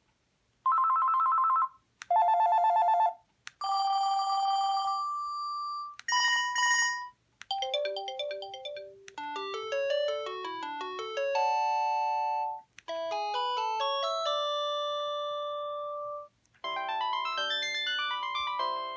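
Panasonic KX-TG220 cordless phone playing its ringtones one after another, each cut off after a second or a few seconds with short gaps between. The first two are rapid warbling trill rings; the rest, about five, are electronic beeping melodies.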